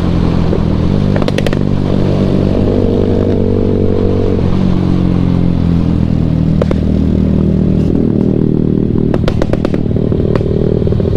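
Motorcycle engine running steadily on the move, its pitch shifting slightly. A few sharp rattling clicks come about a second in, once in the middle and in a cluster near the end.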